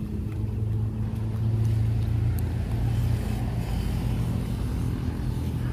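Motorbike engine running steadily at low revs, a constant low hum.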